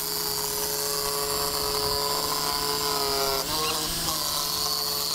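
Handheld corded power saw cutting a sheet of Lexan polycarbonate: a steady motor whine that drops lower about three and a half seconds in and stops at the very end.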